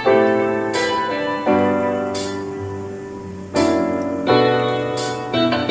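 Background piano music: slow, sustained chords changing every second or so.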